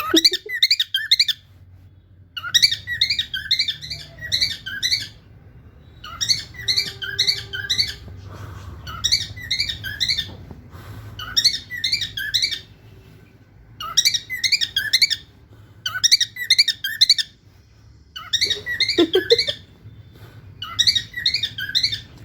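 Lutino cockatiel singing: bouts of rapid, high chirping notes, each about a second long, repeated with short pauses between them.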